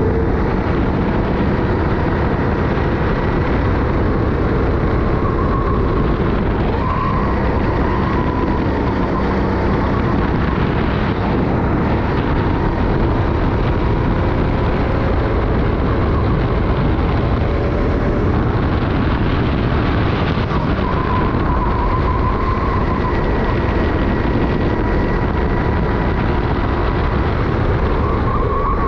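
Four-stroke rental go-kart engine running at high revs through a race lap, its pitch shifting only a little through the corners, under steady wind and track noise on a helmet chin-mounted camera.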